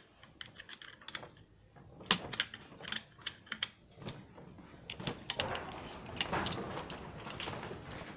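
Hand tools working steel parts of a truck's steering rod end: irregular sharp metallic clicks and taps, with scraping from about five seconds in.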